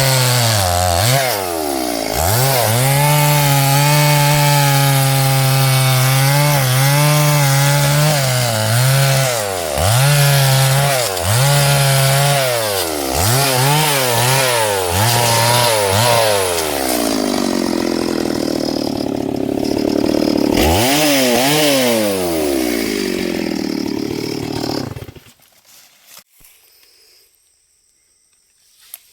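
Small chainsaw cutting through a log, its engine pitch dipping and recovering again and again as the chain loads up in the wood. It cuts off suddenly near the end.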